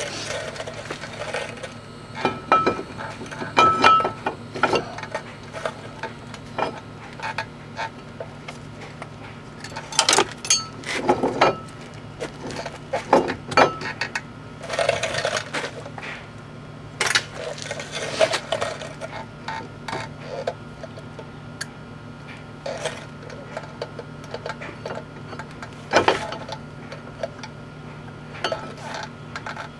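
Irregular metallic clinks and clanks of hand tools and brake parts being handled during brake reassembly after a wheel hub replacement, with a few louder knocks among quieter taps.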